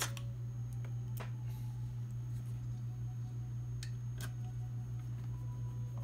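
A handful of small sharp clicks and taps as a screw and screwdriver are handled at the dental scanner's power board, over a steady low hum.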